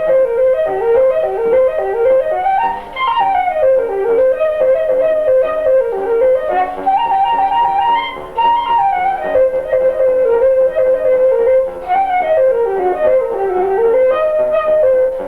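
Instrumental music: a woodwind melody moving up and down in steps, over quieter accompanying notes.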